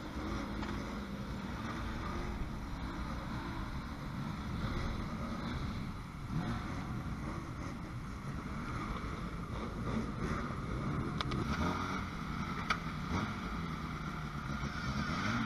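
Classic Mini racing cars' BMC A-series four-cylinder engines running at idle in the assembly area, a steady low engine note that rises and falls a few times as they are blipped and moved up.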